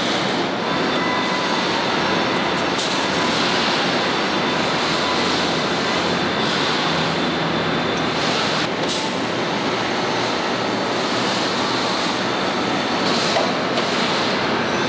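Steady din of a tractor assembly line: machinery running with a broad noise and faint steady hums. Short high hisses come about three and nine seconds in, like compressed air being let out.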